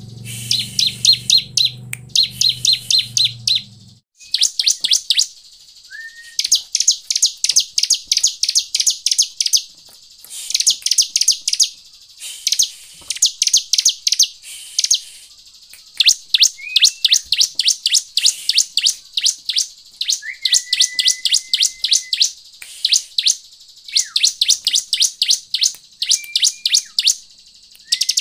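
Bar-winged prinia (ciblek) calling in repeated bursts of fast, sharp, high chips. Each burst lasts a second or two, with short pauses between, and a few brief whistled slurs are mixed in. A low hum sits under the first four seconds, then cuts off.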